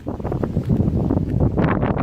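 Wind buffeting the microphone: a loud, uneven rumble with gusty rustling.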